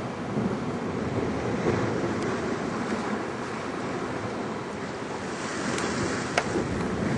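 Surf washing against breakwater rocks, a steady rushing wash of sea noise with wind buffeting the microphone. A sharp click comes near the end.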